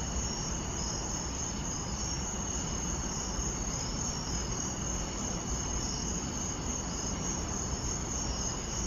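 Crickets chirping in a steady chorus, with a high, evenly pulsing trill.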